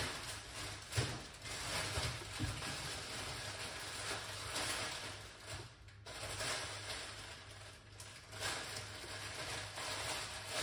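Whole spice seeds frying in hot oil in an aluminium pot, a steady sizzle that swells and eases, over a low electrical hum.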